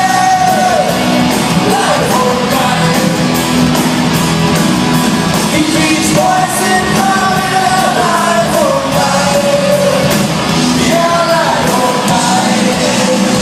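Live band playing loud music with a lead voice singing long, held notes over a steady beat.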